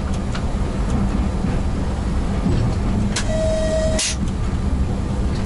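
ChS200 electric locomotive cab at speed: a steady low rumble from the running gear and traction equipment. About three seconds in, a click is followed by a short steady beep lasting under a second, which ends in another click.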